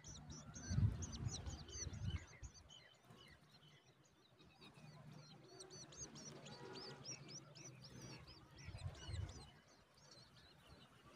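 Woodshrike nestling begging while a parent feeds it at the nest: a rapid run of short, thin, high-pitched chirps, busiest in the middle. There are low muffled thumps in the first two seconds and again about nine seconds in.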